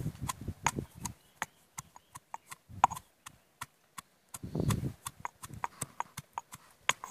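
Stone pestle pounding in a stone mortar, crushing small onions: an irregular run of sharp knocks and clicks, with a stretch of duller, heavier thuds a little past halfway.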